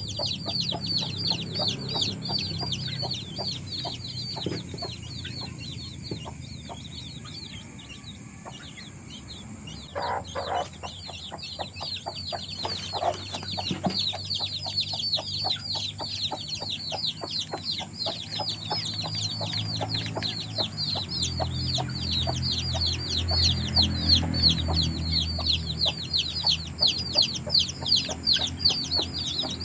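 Chickens calling: a dense stream of short, high, falling peeps, many a second and overlapping, with lower calls beneath that get louder about two-thirds of the way through.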